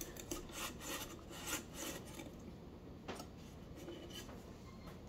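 Hands handling the plastic pump body and impeller housing, faint rubbing and scraping: several quick strokes in the first two seconds, then one more about three seconds in.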